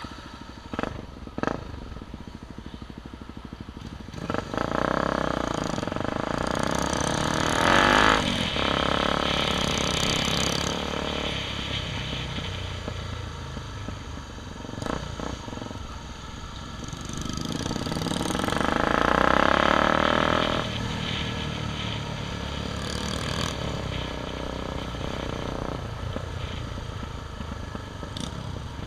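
Enduro motorcycle engine heard from the rider's own bike, running steadily at low speed and picking up twice, about four seconds in and again around seventeen seconds, each time for a few seconds.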